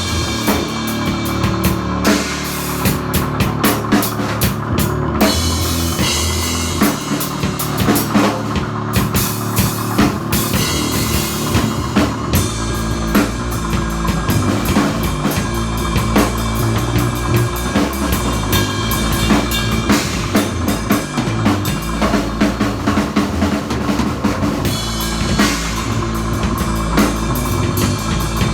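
Rock band music: a drum kit keeps a steady beat of bass drum and snare over bass notes that change in steps, and the low end deepens about halfway through.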